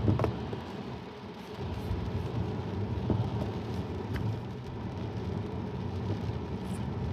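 Steady low road and tyre rumble inside a Tesla's cabin, driving on a rain-soaked road, with no engine note, since the car is electric. The rumble dips briefly about a second in.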